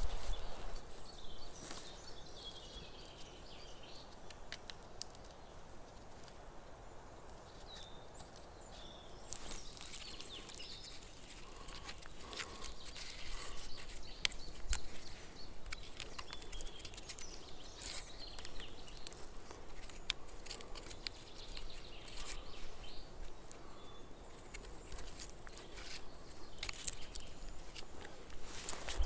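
Outdoor forest sounds: scattered light clicks, crackles and rustling, with faint bird calls.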